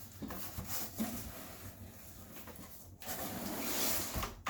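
Packaging being handled: rubbing and rustling with small knocks, then a louder rustle near the end that cuts off abruptly.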